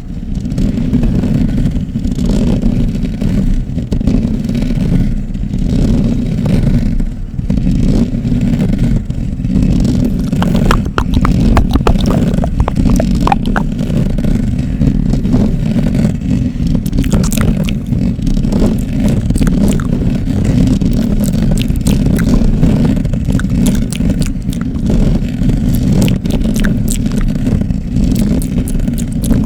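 ASMR scratching close on the microphone: a loud, dense, low scraping that keeps going without a break, with small sharp clicks joining in from about ten seconds in.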